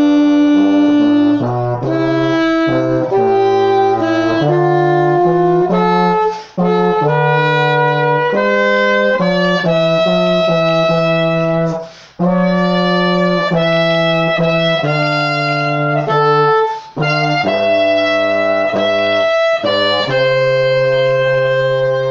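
Alto saxophone and euphonium playing a slow hymn tune in duet, the saxophone carrying the melody above the euphonium's lower part. The music is played in sustained phrases with brief gaps between them.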